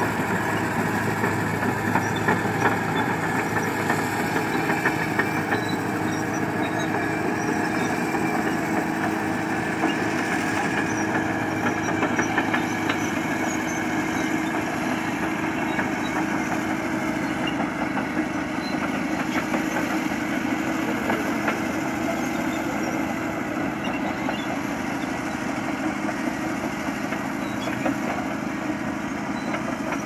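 Caterpillar D9R crawler bulldozer's diesel engine running steadily as the machine works its way along a slope.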